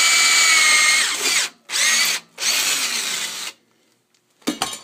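Cordless drill boring through aluminum stock held in locking pliers: a steady high motor whine that drops a little in pitch about a second in, then three short trigger bursts, stopping about 3.5 s in. A couple of sharp knocks follow near the end.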